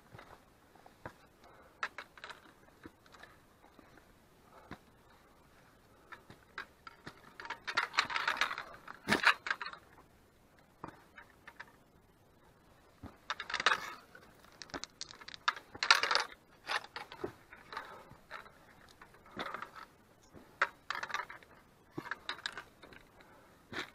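Footsteps and trekking-pole tips on limestone rock and scree: irregular sharp clicks of pole and boots striking rock, with small loose stones clinking and clattering. Two louder spells of scrambling, about eight seconds in and again from about fourteen to sixteen seconds in.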